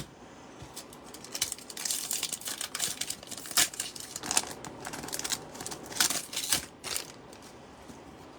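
Foil trading-card pack wrappers crinkling and tearing as a pack is opened, a run of crackles and rips with a few louder ones, dying down near the end.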